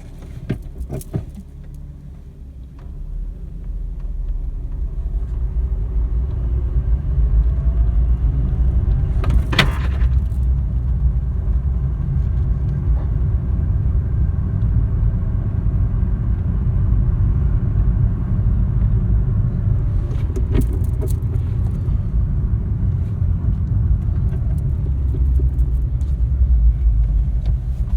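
Mk4 Jetta's 12-valve VR6 engine and road noise heard from inside the cabin while driving. The low rumble builds over the first several seconds with a faint rising engine pitch as it accelerates. A few sharp clicks or knocks sound at about a second in, near the middle, and later on.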